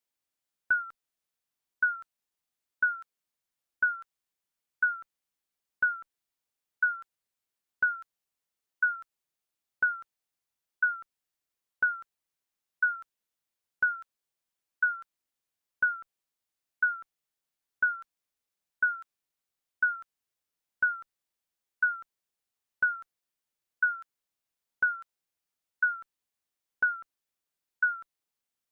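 Digital countdown timer beeping once a second: a short, slightly falling electronic beep repeated evenly, each one marking a second of the countdown.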